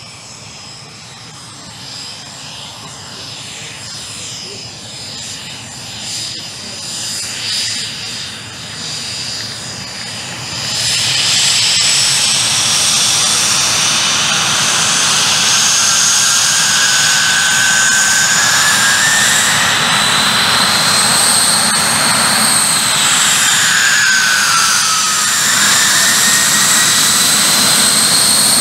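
Soko G-2 Galeb's Rolls-Royce Viper turbojet running while the jet taxis, a high whine over a rushing roar. About ten seconds in it becomes markedly louder, and the whine then rises and dips in pitch.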